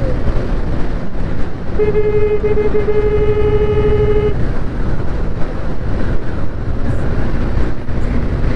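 Steady wind and road rumble from a TVS NTorq scooter ridden at about 80 km/h. A vehicle horn sounds one steady, held tone for about two and a half seconds, starting about two seconds in.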